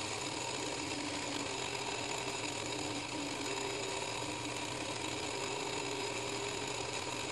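Electric motor of a home-built cork lathe running steadily, with coarse sandpaper held against the spinning cork rod handle.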